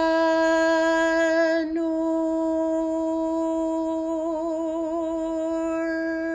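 A single voice chanting the Sufi invocation "Ya Nur" on one long held note. The vowel changes about two seconds in, and later the note wavers slightly as it is sustained.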